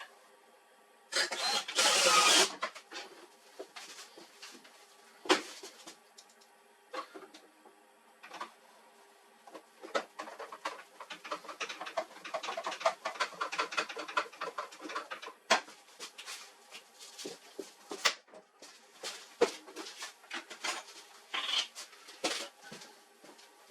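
Irregular clicking and plastic clatter from an HP LaserJet 4345 laser printer, with a faint steady hum under it. There is a louder rattling burst about a second in and a dense run of rapid clicks around the middle.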